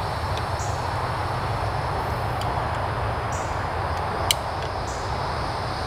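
Steady low outdoor rumble with faint high insect chirps, and a single sharp click about four seconds in as a small S-biner clip is hooked onto the bow.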